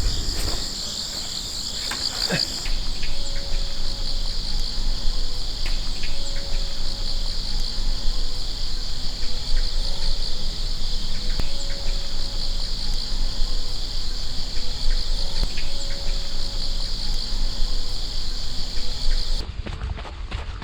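Steady chorus of insects chirring in a high, finely pulsing trill. It cuts off suddenly about a second before the end.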